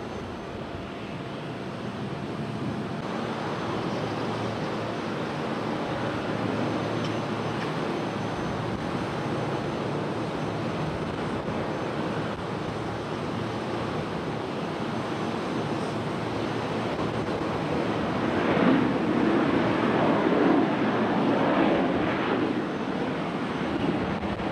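Boeing 737 CFM56 jet engines: first a 737-700 climbing away after takeoff, then a 737-800 rolling down the runway after landing. The engine noise grows louder and rougher about three-quarters of the way through.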